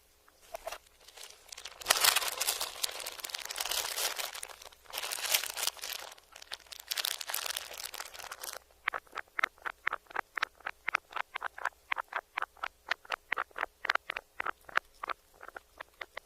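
Eating sounds played backwards: several seconds of crinkling and crunching, then a fast, even run of short crunchy chewing clicks, about four or five a second.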